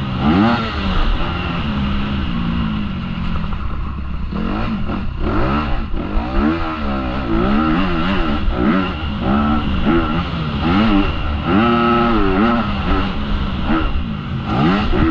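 Honda CRF250R's single-cylinder four-stroke engine heard from onboard, revving up and down again and again as the throttle is opened and closed. The pitch rises and falls many times, with quick sweeps in succession.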